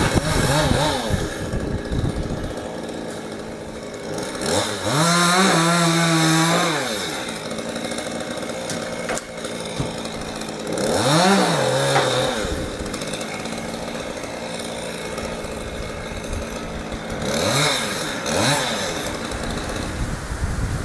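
Chainsaw idling and revved up three times, each time rising in pitch, holding briefly and dropping back to idle.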